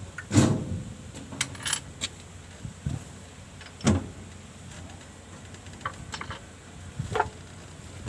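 Scattered metallic clinks and knocks, like hand tools and metal parts striking one another, about a dozen irregular hits with the loudest near the start and about four seconds in.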